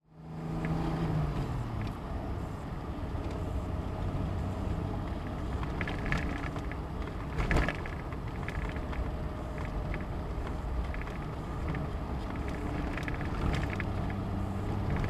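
Car engine running at low speed on the climb up the hill, with road noise, heard from inside the car. The engine note drops about a second in, and occasional knocks and rattles come through, the loudest about seven and a half seconds in.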